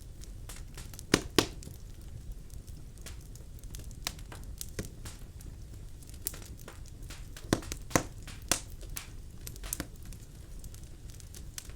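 Birch logs burning in a fireplace: irregular sharp crackles and pops over a low steady rumble of the flames, with two loud pops about a second in and another few near two-thirds of the way through.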